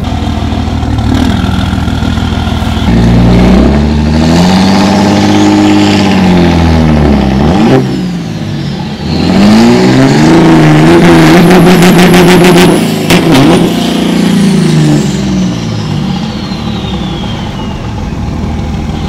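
Lifted Dodge Ram pickup's Cummins turbo-diesel revved hard during a burnout, its rear tyres spinning. The revs rise and fall in two long pulls, with a brief drop about eight seconds in, and a high whistle slides down as the revs fall near the end.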